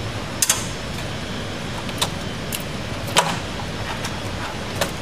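Irregular sharp clicks and clacks, about six in all, of plastic plug-in terminal connectors and a small screwdriver being worked on the metal housing of a recloser control, over a steady low hum.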